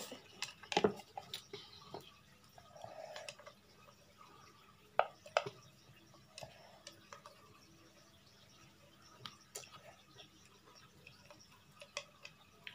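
Sparse, faint eating sounds while drinking ramen broth from a bowl: a short slurp about three seconds in, and scattered small clicks and taps of the bowl and chopsticks.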